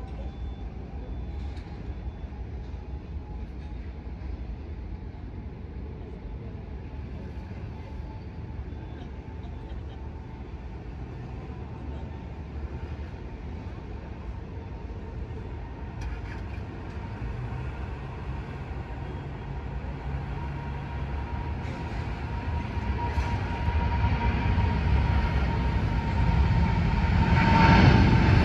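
Jet airliner engines: a steady whine over a low rumble, growing louder toward the end as the aircraft comes closer.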